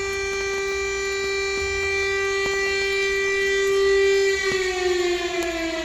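Air raid siren sounding an alert, wailing on one steady high tone and then, about four seconds in, sliding steadily down in pitch.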